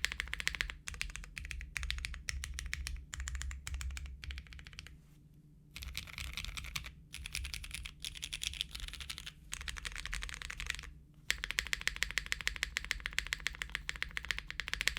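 Typing on a Kohaku custom mechanical keyboard with GHV4-lubed, retooled MX Brown tactile switches on an aluminium plate with GMK keycaps: dense runs of keystrokes. Brief pauses come about five seconds and eleven seconds in, and the typing stops right at the end.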